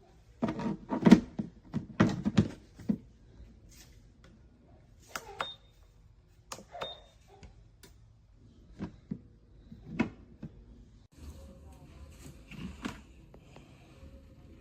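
Clatter and knocks of hard items being handled, with two short high beeps a few seconds in. About 11 seconds in, a steady low hum starts abruptly.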